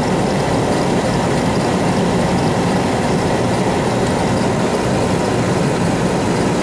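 Oil-fired furnace running: a loud, steady, even mechanical hum from the oil burner.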